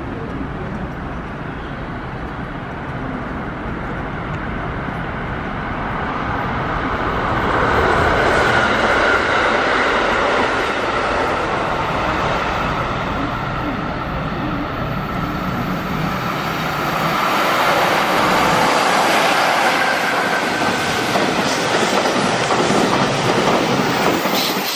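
JR Freight EF66 electric locomotive hauling a container freight train approaching and passing, a steady rumble that swells louder as it draws near. Near the end the container wagons roll by with rhythmic clickety-clack from their wheels.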